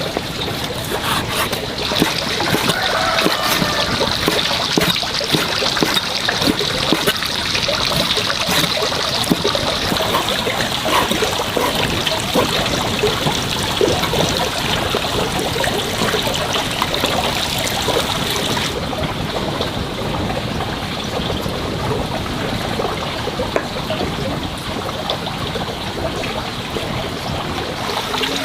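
Water running and trickling steadily, with many small splashes and clicks. About two-thirds through the sound changes abruptly and loses its highest hiss.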